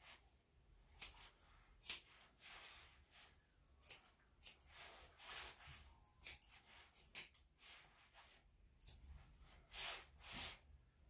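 Grooming scissors snipping the long hair on a dog's leg: about a dozen sharp snips at irregular intervals, with softer rustling of fur between them.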